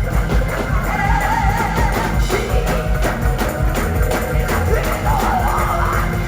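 Gospel choir singing with a live band: drums, bass and organ or keys under sustained sung lines, with a steady driving beat.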